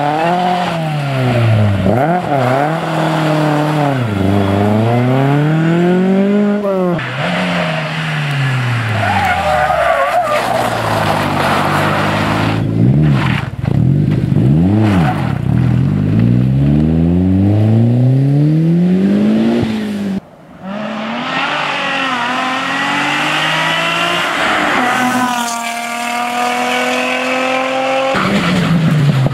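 Rally car engines revving hard, the revs climbing and dropping again and again through gear changes and lift-offs, as the cars power-slide through corners one after another, with tyre skid noise. Near the end one car's engine pulls steadily higher in the revs.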